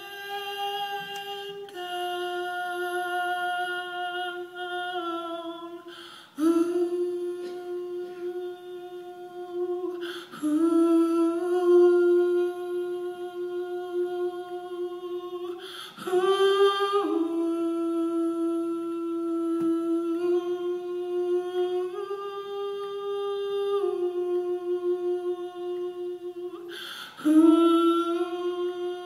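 A single voice humming a slow wordless melody in long held notes that step a little up and down, with a short intake of breath before each new phrase.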